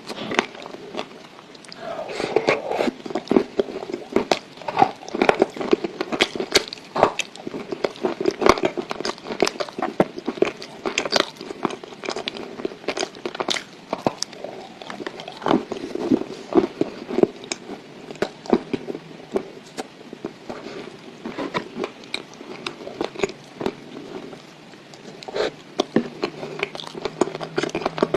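Close-miked biting and chewing of dry Ural clay: a dense, irregular run of sharp crunches and crackles.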